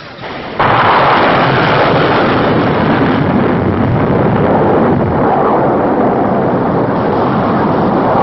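Sea Sparrow missile launched from a ship: the rocket motor ignites suddenly about half a second in, then fires with a loud, steady rushing noise.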